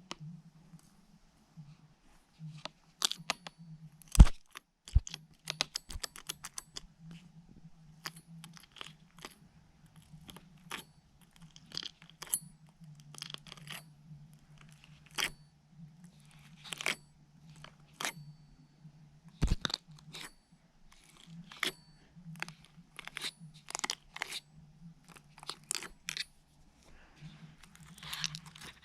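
Slime being squeezed and worked by hand, making many short sharp clicks and crackling pops at irregular intervals, with two louder thumps, one about four seconds in and one around the middle, over a steady low hum.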